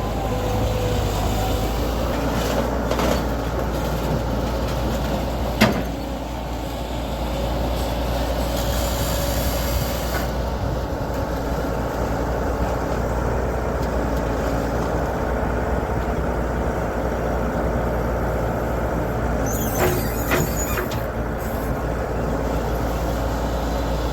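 Heavy vehicle engine running steadily, with a sharp knock about five and a half seconds in and short bursts of hiss near the middle and toward the end.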